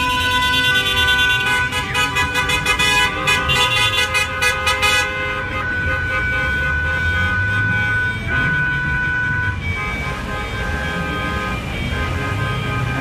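Car horns honking from a slow-moving convoy of cars. Several horns are held in long tones, and one of them sounds in quick repeated beeps for a few seconds. A low rumble of engines and traffic runs underneath.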